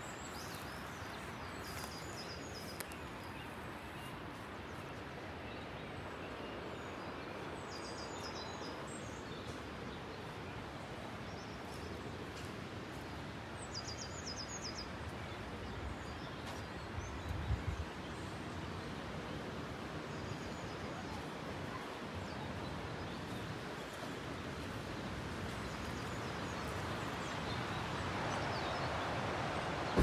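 A steady rush of running mountain water that grows louder near the end, with a small bird giving several quick bursts of high chirps. A few low bumps come about two-thirds of the way through.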